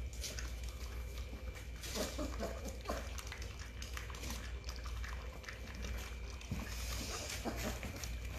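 Several puppies lapping milk from a stainless steel puppy feeding pan: an irregular run of small wet laps and smacks.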